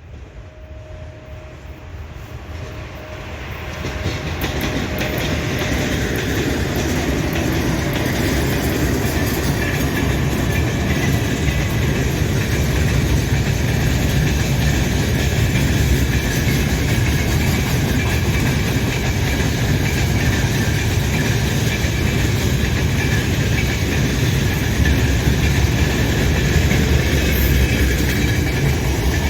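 Two 2ES5K 'Ermak' electric locomotives with a mixed freight train approach at speed, growing louder over the first four seconds. The train then runs past in a steady, loud rumble of steel wheels on the rails, with some rhythmic wheel clatter.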